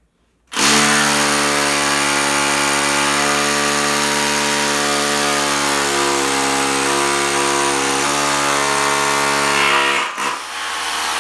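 Milwaukee 2712-20 SDS Plus rotary hammer in hammer-drill mode, drilling a 3/16-inch hole into concrete. It starts suddenly about half a second in and runs steadily at full power for about nine seconds. It then eases off to a lower level near the end.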